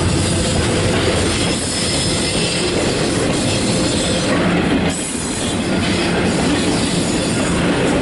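Double-stacked intermodal container well cars of a freight train rolling past, a loud, steady rumble of steel wheels on the rails.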